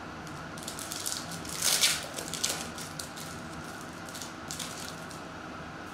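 Foil wrapper of a 2020-21 Recon trading-card hobby pack crinkling and tearing as it is picked up and ripped open by hand, loudest about two seconds in, then dying down near the end.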